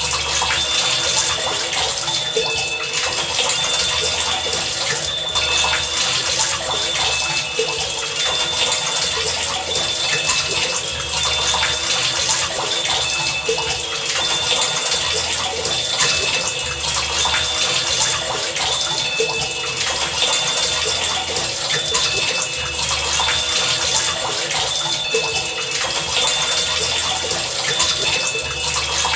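Heavy rain pouring steadily, a dense hiss, with short high-pitched tones dotted through it and a low hum that comes and goes every second or two.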